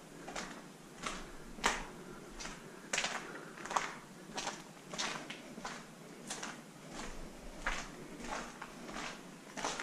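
Footsteps of someone walking at an even pace, about three steps every two seconds.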